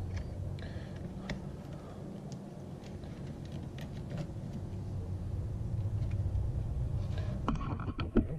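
Light clicks and rubbing of a sanding belt being worked onto the plastic belt arm of a Work Sharp knife sharpener by hand, over a steady low hum; a few sharper knocks near the end as the sharpener is set down on the table.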